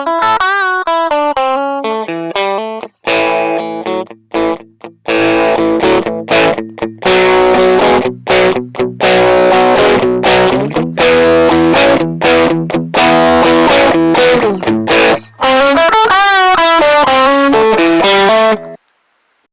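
Electric guitar, a Fender Stratocaster on its bridge-and-middle pickups, played through a Boss OD-1 overdrive pedal: single-note phrases and chords with bent, wavering notes. It cuts off suddenly near the end.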